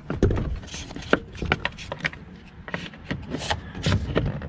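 Plastic wiring connectors and wires handled and pushed together inside a truck door: irregular small clicks and rubbing, with sharper clicks about a second in and again near the end.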